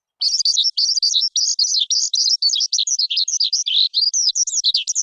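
Skylark singing a rapid, unbroken stream of high warbling, chirping and trilled notes, starting just after the beginning.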